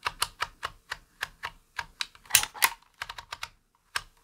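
Dymo Omega embossing label maker: the letter wheel clicks round at about five clicks a second, then gives two louder clunks about halfway through as the handle is squeezed hard to emboss a character, followed by a few more clicks.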